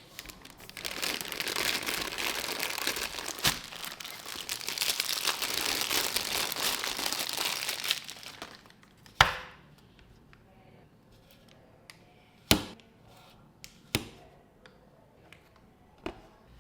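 Packaging being crinkled and torn open for about eight seconds, then a few sharp clicks and knocks of handling.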